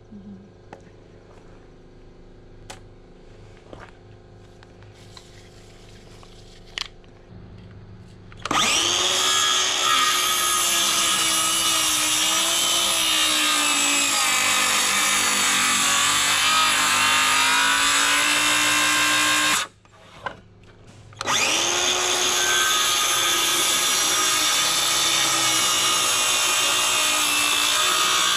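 DeWalt cordless circular saw ripping lengthwise along a board. After a few faint knocks the saw starts about eight seconds in and cuts steadily. It stops for a second or so about two-thirds of the way through, then starts again and keeps cutting.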